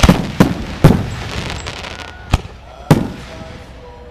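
Aerial firework shells bursting overhead: three sharp bangs in quick succession, then two more about a second and a half later, each followed by a rolling echo.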